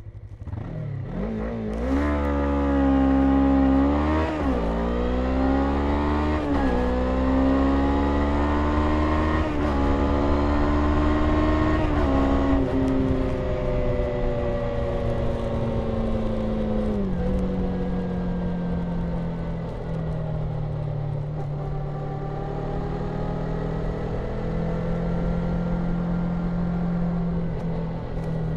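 Suzuki V-Strom 250's 248cc parallel-twin engine pulling hard from a standstill through the gears. The revs climb in steps, with a brief dip at each of several upshifts, up to about 100 km/h. Then the throttle closes and the engine drops to a lower, steadier note as the bike slows.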